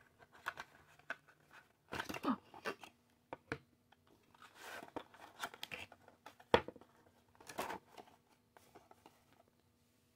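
A thin cardboard perfume box being opened by hand and the glass bottle slid out of its cardboard insert: rustling and scraping of card in several bursts, with one sharp knock about six and a half seconds in.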